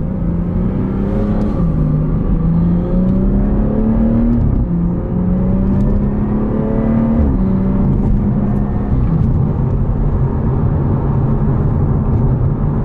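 BMW B58 3.0-litre turbocharged inline-six, fitted with a carbon fiber intake, downpipe and axle-back exhaust, pulling through the gears. The engine note climbs and drops at each upshift, about four and a half and seven seconds in, then settles into a steady run.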